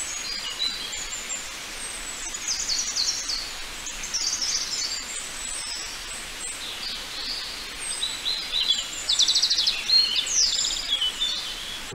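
Forest ambience: several birds chirping and calling high-pitched over a steady hiss, with a fast trill about nine seconds in.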